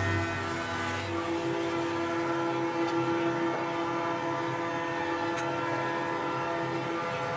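Bandsaw running steadily, a continuous hum with a held whine over it.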